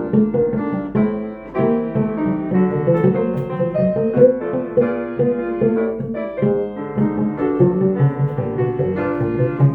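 Jazz piano playing, a flow of chords and melodic notes.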